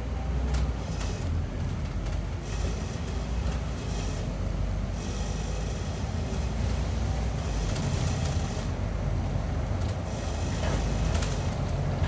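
Scania N230UD Optare Olympus double-decker bus under way: a steady low engine and road rumble, with patches of higher hiss coming and going.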